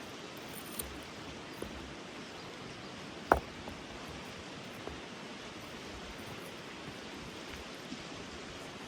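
Steady rush of a stream's flowing water, with a few light clicks and one sharp knock about three seconds in.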